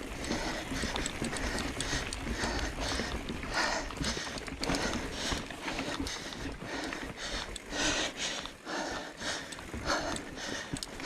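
Mountain biker breathing hard in short breaths about once a second while pedalling up a steep climb, with the bike's tyres rumbling and rattling over the trail.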